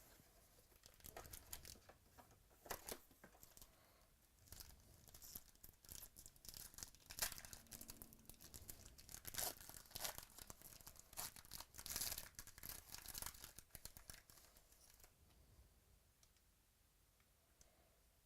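Trading-card packaging being torn open and crinkled by hand: a run of sharp crackles and rustles that stops a few seconds before the end.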